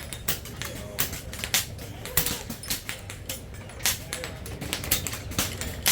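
Air rifles firing in quick, irregular succession, many sharp cracks a few per second from several shooters, some with a short ringing tail.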